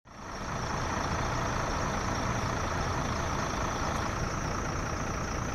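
Steady traffic noise with a vehicle engine idling as a low hum, and a faint constant high whine above it.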